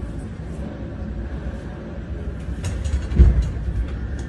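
Low, steady rumble of a burning LATAM airliner skidding down the runway after an accident on takeoff, with one heavier thump about three seconds in.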